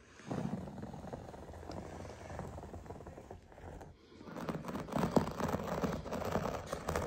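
A hand carpet cutter's blade slicing along a seam edge through the carpet backing, a rapid crackling rasp. It breaks off briefly about four seconds in, then goes on louder.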